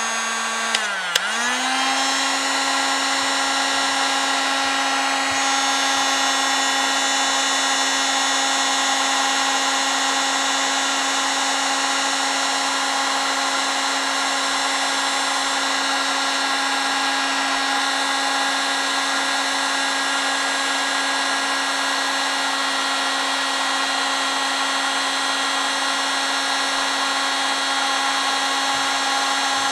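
Heat gun blowing hot air, its fan motor running with a steady whine. About a second in a switch clicks twice, and the whine dips in pitch, then settles slightly higher.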